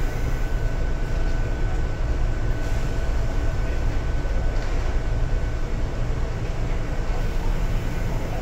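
Sangi Railway 101-series electric train car KuMoHa 106 running at a steady pace, heard from on board. A continuous low rumble of wheels on the rails carries a steady hum.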